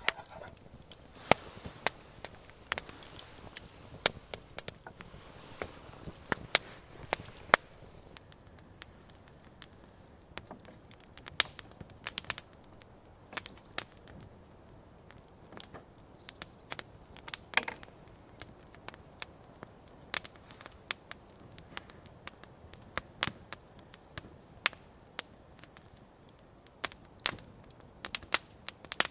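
Wood campfire crackling, with sharp irregular snaps and pops a few times a second.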